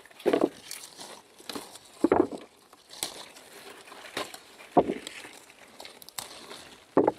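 Aronia berry clusters being hand-picked off the bush: rustling with irregular short knocks, roughly one a second.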